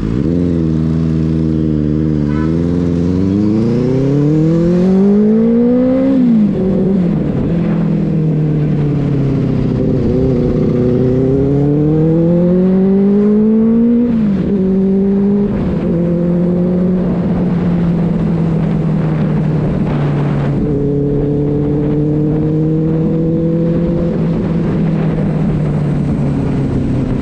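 Benelli 600i's inline four-cylinder engine under way, revs climbing through the gears with sharp drops at upshifts about six and fourteen seconds in, then holding a steady cruise.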